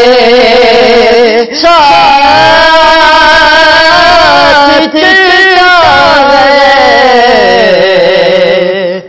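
A male naat reciter singing an Urdu naat solo in long, ornamented phrases, holding notes with a slow waver. There are two brief breaks in the line, and it sinks lower near the end.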